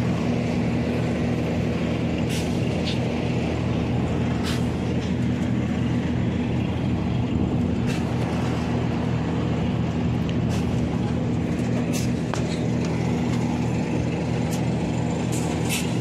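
A motor or engine running with a steady low hum, with a few short sharp clicks scattered over it.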